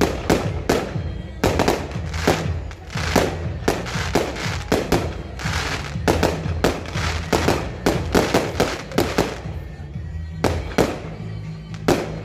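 Aerial firework shells bursting in a rapid, unbroken run of sharp bangs, several a second, with music playing underneath.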